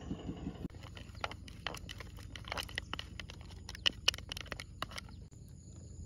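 Chopsticks clicking and tapping against a thin plastic bowl, a quick irregular run of light clicks as wasabi is stirred into soy sauce. Under it is a steady high insect whine, and a low idling engine putters for the first moment before cutting off abruptly.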